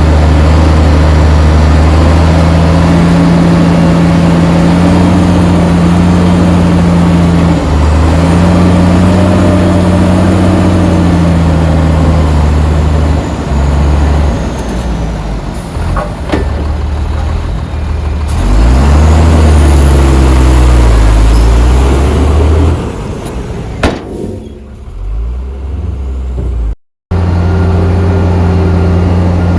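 Heavy diesel engines of earthmoving machinery working, loud and steady with revs rising and falling partway through. The engine sound eases off about three-quarters of the way in, cuts out abruptly for a moment, then resumes steady.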